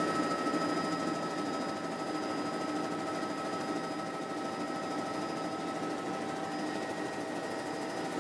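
Helicopter in flight, moving away: its engine and rotor make a steady sound, with a constant whine of several held pitches.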